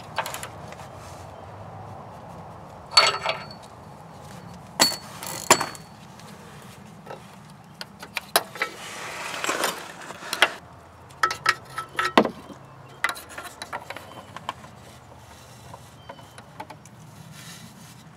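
Scattered metallic clinks, knocks and clicks of hand tools and the oxygen sensor and its wiring being handled, a few of the louder clinks ringing briefly, with a short rustle about nine seconds in.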